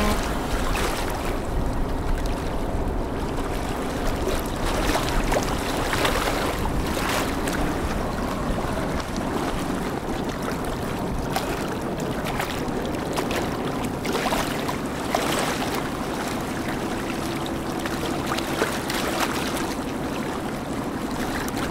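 Steady river ambience: a continuous wash of water and wind with the low, steady drone of a boat engine underneath.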